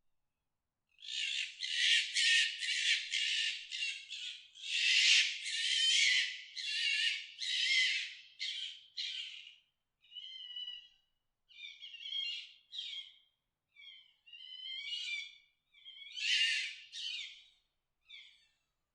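Fox mating calls: a fast run of high, rasping screams packed close together for about eight seconds, then shorter calls spaced further apart.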